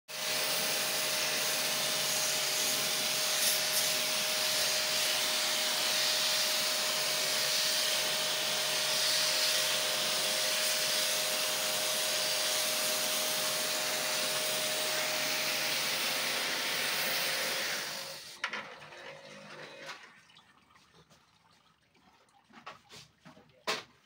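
Steady rushing spray of water being jetted onto the finned evaporator coil of a Daikin VRF ducted indoor unit during a coil clean, with a faint steady tone under it. The spray fades out about 18 seconds in, followed by a few light knocks near the end.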